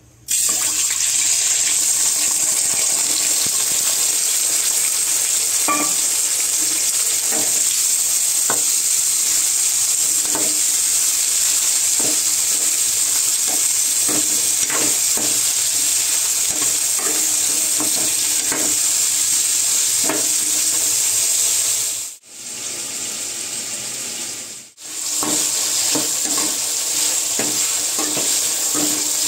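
Food sizzling steadily in hot oil in a pan while it is stirred, with scattered short scrapes and knocks of the spatula against the pan. The sizzle starts suddenly right at the beginning and briefly drops away twice near the end.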